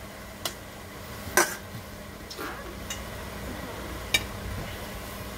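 Coca-Cola bubbling in a pan of chicken wings on high heat, a low steady fizzing hiss, with a few sharp knocks of kitchenware, the loudest about a second and a half in.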